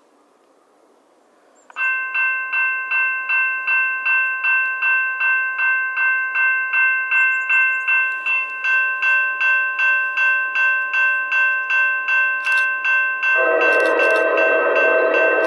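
Railroad grade crossing bell starting up about two seconds in and ringing steadily at about three strikes a second, the warning of an approaching train. Near the end the approaching train's horn sounds loud and steady over the bell.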